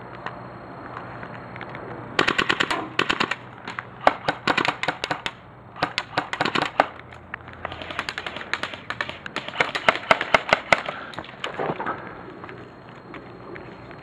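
Airsoft guns firing rapid bursts of full-auto clicks, several bursts one after another starting about two seconds in and dying away near eleven seconds.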